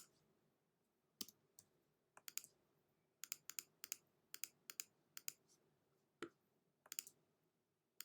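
Computer mouse clicking: faint, sharp clicks at an irregular pace, often in quick pairs or short runs, as a photo-editing brush is worked in small strokes.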